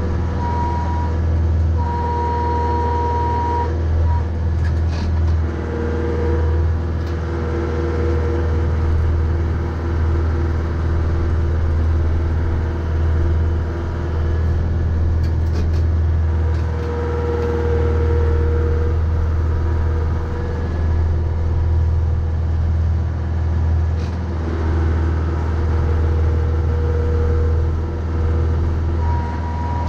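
Mahindra 3550 tractor's 50 hp diesel engine running steadily while plowing snow, with a higher whine that comes and goes every few seconds.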